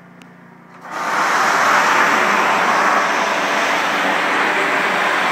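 A 3,500-psi hot-water pressure washer's wand opening up about a second in: a loud, steady hiss of high-pressure spray blasting tile and grout. Before it, a low steady hum.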